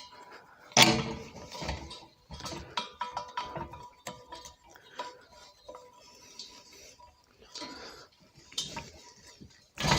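Irregular metal clinks and knocks from a propane hose fitting being handled and connected to a tank valve, with a louder knock about a second in and another near the end.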